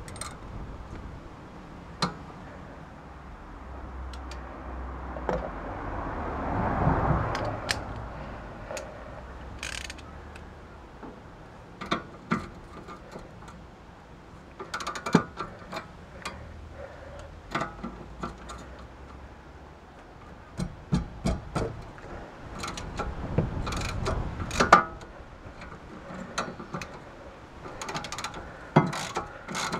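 Hand wrenches clicking and clinking on the nut of a BMW E46 front sway bar end link as it is worked, in scattered bursts of sharp metal ticks that come thicker in the second half. About six to eight seconds in there is a soft rushing swell.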